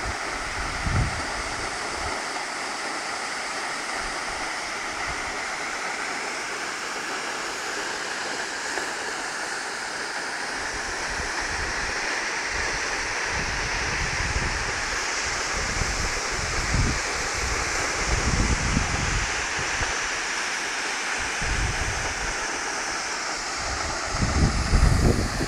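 Waterfall rushing steadily. Gusts of wind buffet the microphone several times, mostly in the second half.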